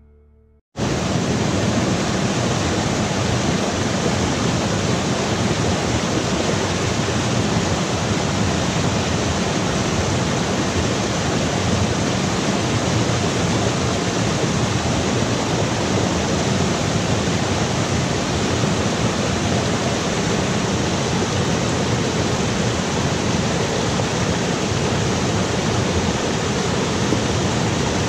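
Steady, loud rushing water with no break in it, starting suddenly just under a second in.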